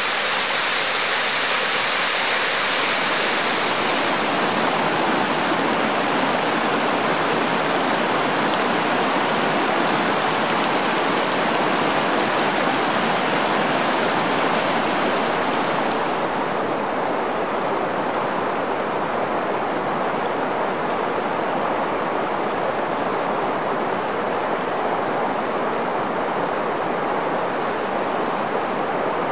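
Steady rush of flowing water from a steaming hot-spring waterfall and a shallow, rocky creek. A little past halfway the sound turns slightly duller.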